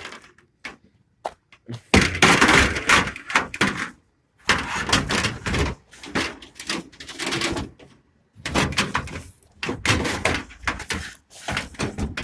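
Metal exercise machines being shoved and knocked about in a pickup truck's bed: scraping and banging in several bouts of a second or more each.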